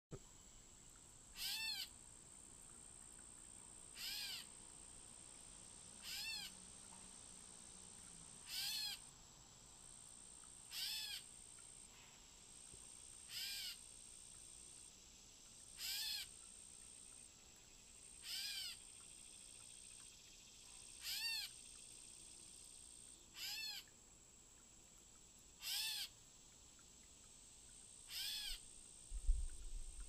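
Gray catbird giving its cat-like mew call over and over: about twelve short, arched mews, one every two and a half seconds.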